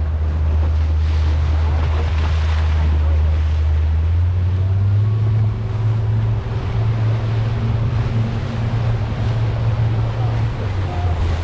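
Powerboat engine running under a steady rush of wind on the microphone and water along the hull. The engine note steps up about four seconds in and settles back down near the end.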